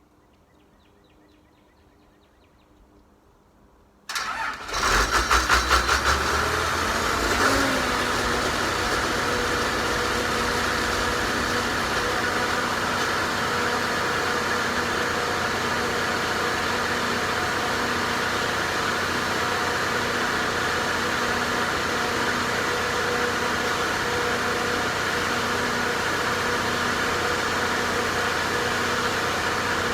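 80 kW Onan standby generator starting by itself after a few seconds of quiet: the engine cranks with a rapid pulsing for about two seconds, catches with a brief flare, then settles into steady running. This is its automatic start on loss of mains power, set off by switching off the main breaker.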